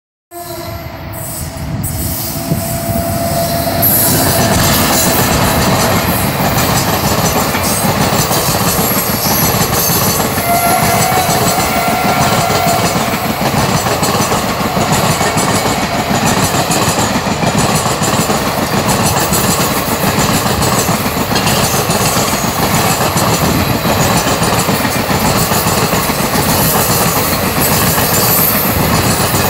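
Indian Railways passenger train passing close by: a steady, loud rumble and clatter of coach wheels running along the rails. It builds over the first few seconds as the train arrives.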